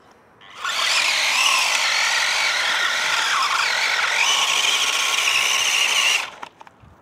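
Toy-grade Grave Digger Trax RC tracked truck's electric drive motors and gears whining at full throttle, with the pitch wavering as the tracks slip on the sandy ramp. The whine starts about half a second in and cuts off about a second before the end.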